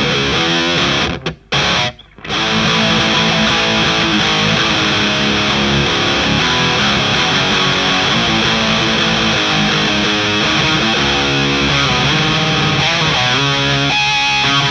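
Electric guitar played through a DIY clone of the Boss HM-2 distortion pedal, the heavily distorted 'Swedish chainsaw' tone, riffing on chords. The playing stops briefly twice, about one and two seconds in, then carries on steadily.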